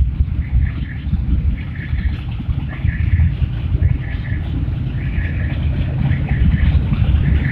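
Several heavy cruiser and touring motorcycles running together, a steady deep engine rumble that pulses unevenly.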